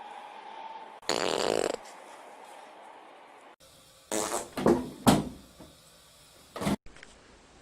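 Farts: one long fart of just under a second about a second in, then three short farts in quick succession, each dropping in pitch, and one more short one near the end.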